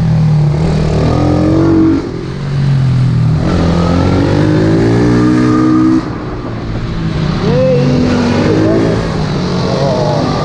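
Single-cylinder pit bike engine at speed, rising in pitch as it accelerates and dropping sharply when the throttle closes, about two seconds in and again about six seconds in.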